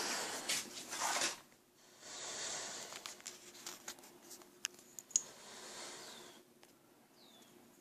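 Quiet movement and handling sounds: soft rustling swells that come and go, with a few sharp clicks and small knocks between them.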